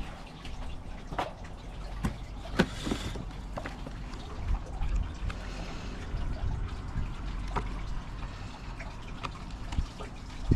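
Paper and cardboard rustling as gloved hands lift a booklet out of a cardboard box, with scattered light clicks and taps over a low steady rumble.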